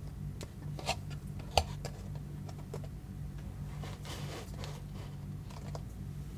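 Handling noises while unboxing: two sharp clicks, about one and one and a half seconds in, the second the loudest, then a rustle of packaging around four seconds in. A low steady hum runs underneath.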